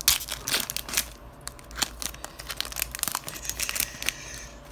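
Foil trading-card pack wrapper crinkling and tearing as it is pulled open by hand: a run of sharp crackles, loudest in the first half-second, dying away near the end.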